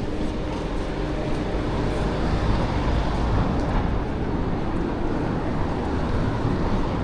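Steady low rumble of vehicle noise in a city, swelling slightly a couple of seconds in.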